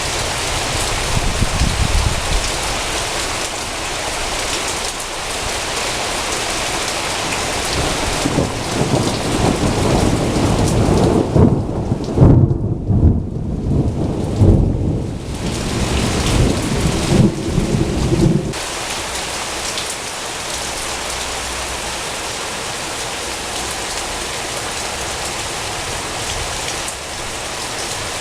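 Heavy rain falling steadily, with a long rumble of thunder that builds from about eight seconds in, is loudest midway, and cuts off suddenly about two-thirds of the way through, leaving the rain alone.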